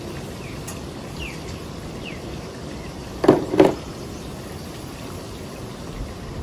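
Steady wind buffeting the microphone. Two short, loud bursts a third of a second apart come a little past halfway through.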